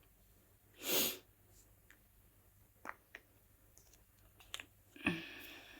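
A short sharp breath about a second in, then a few faint clicks from handling the pigment container, and a brief hummed vocal sound near the end.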